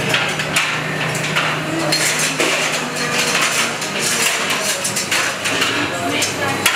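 Busy kitchen clatter: metal pots, pans and utensils clinking and knocking again and again, over a steady low hum.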